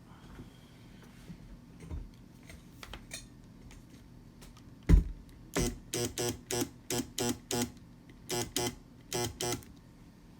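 Robot Coupe MP 600 Turbo stick blender's motor: a sharp click about halfway through, then about a dozen short buzzes in quick groups. The motor is getting power but is stuck and cannot turn.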